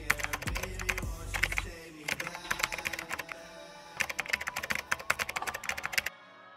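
Computer keyboard typing sound effect: three runs of rapid key clicks, the last cutting off suddenly near the end, laid over background music whose bass drops out about two seconds in.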